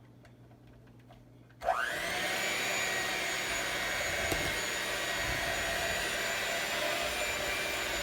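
Electric mixer switched on a little under two seconds in, its motor whine rising quickly in pitch as it spins up, then running steadily as it beats cake batter.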